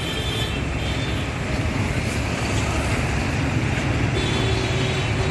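Busy city road traffic: cars, a bus and motor scooters running past in a steady low rumble.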